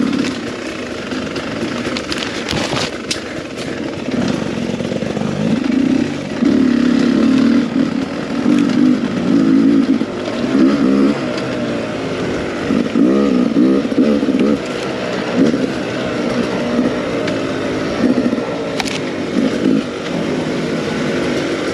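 Beta 300 RR two-stroke enduro motorcycle engine being ridden hard, its revs rising and falling in repeated short pulls. There are sharp knocks about three seconds in and again near the end.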